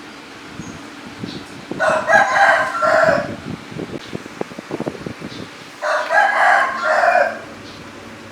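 A rooster crowing twice, each crow about a second and a half long and broken into several syllables, a few seconds apart, with soft tapping and handling noises between the crows.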